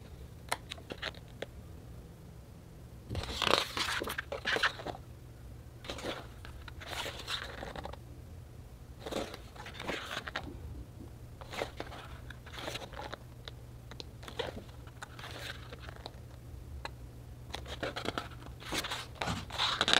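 Thick pages of a large hardcover photobook being turned by hand, the paper rustling and flapping over in about six page turns a few seconds apart, over a faint low hum.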